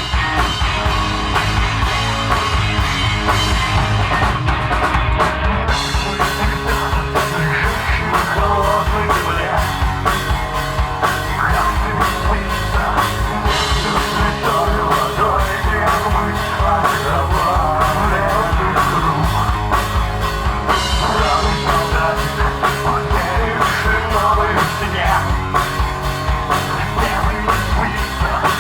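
Live rock band playing: drum kit, guitars and a singing voice, loud and steady. The cymbals come in strongly about six seconds in.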